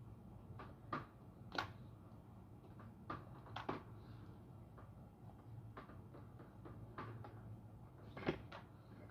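Faint, irregular clicks and light taps of a hair straightener being handled, its plates closing and sliding through hair, about a dozen over several seconds, over a low steady hum.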